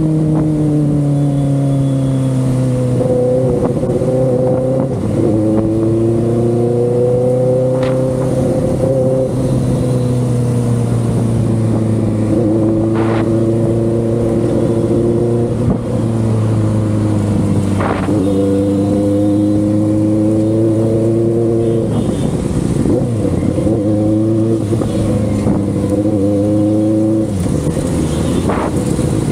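Benelli 600i inline-four engine and exhaust running steadily at moderate revs, its pitch slowly rising and falling and dropping in steps several times. A few short sharp clicks stand out above it.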